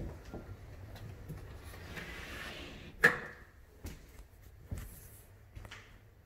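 Footsteps on a bamboo hardwood floor, about one a second, with one sharp, much louder knock about three seconds in.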